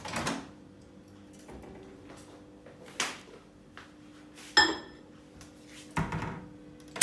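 Microwave oven door opening and shutting around a ceramic mug being set inside: a sharp click, then a ringing clink of the mug set down about halfway through, then a duller thud of the door closing near the end.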